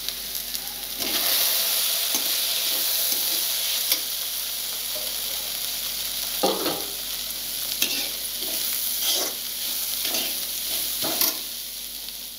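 Chopped vegetables (carrot, green beans, onion) sizzling in hot oil in a kadai, with a steady hiss that grows louder about a second in. From the middle on, a perforated metal spatula scrapes and tosses them against the pan several times.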